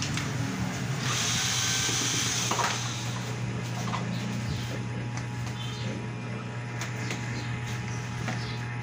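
Cordless drill-driver running as it backs screws out of a plastic LED TV back cover, over a steady low hum.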